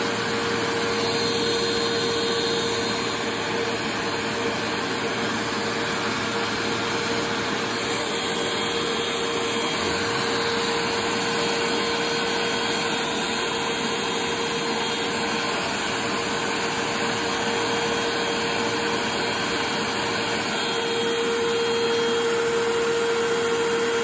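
Upright bagless vacuum cleaner running steadily with a constant whine, its hose nozzle drawn over a mesh air filter.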